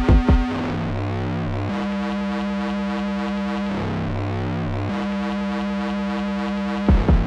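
Music: sustained synthesizer chords with no drums or vocals, shifting to a new chord every second or two. The beat comes back just before the end.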